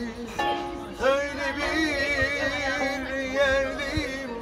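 Music with a singing voice, its held notes wavering up and down.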